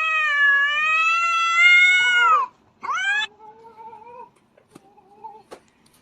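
A cat's long, drawn-out yowl, then a short meow rising in pitch about three seconds in, followed by a few fainter calls.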